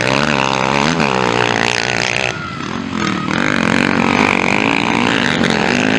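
Motocross bikes' engines revving, the pitch rising and falling as the riders work the throttle through the corners. The sound dips briefly about two and a half seconds in, then picks up again.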